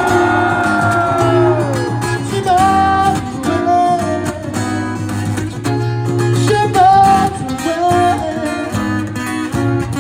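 Live guitar-led pop-rock music: a held sung note trails off in the first two seconds, then the guitar plays an instrumental passage over the band.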